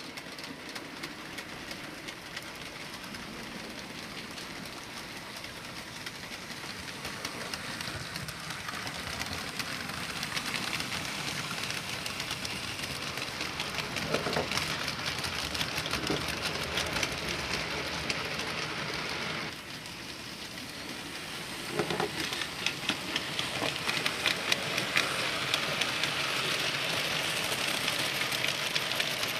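HO scale model goods train running on the layout's track: a steady rattling patter of small wheels on the rails. It grows louder through the first two-thirds, dips briefly, then comes back louder.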